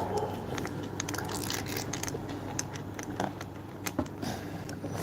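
Small plastic toy kitchen pieces clicking and clattering as they are handled, in irregular light clicks over a steady low hum.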